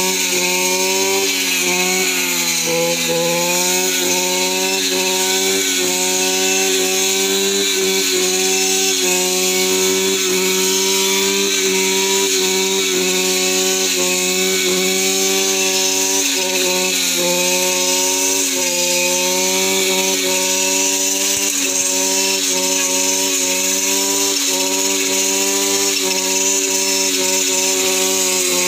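Petrol brush cutter running at high speed as it cuts weeds and grass, a steady engine note whose pitch sags briefly about three seconds in under load and wavers a little as the cutting head sweeps through the growth.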